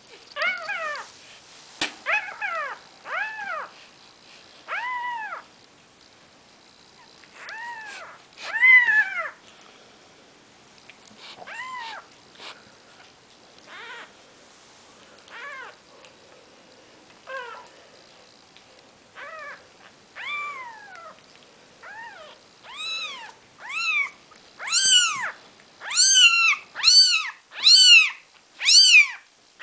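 Four-day-old Maine Coon kittens mewing: short, high, arching cries, scattered at first, then coming louder and quicker, about one a second, over the last several seconds.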